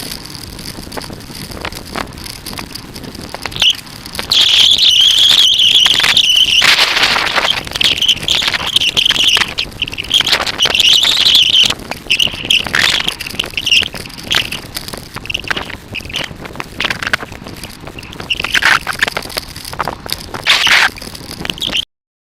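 Bicycle brakes squealing again and again at a steady high pitch, some squeals long and some short, over tyre and road noise; the audio cuts off suddenly near the end.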